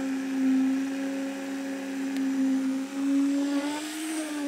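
Concrete poker vibrator running in fresh concrete with a steady high-speed motor hum. Its pitch lifts slightly near the end as the poker is shifted in the mix.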